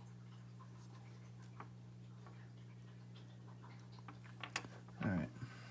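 Close-up soldering work on a small FPV camera board. A steady low electrical hum sits under faint scattered clicks of the iron, wires and board being handled, with a few sharper clicks and a short, louder sound near the end.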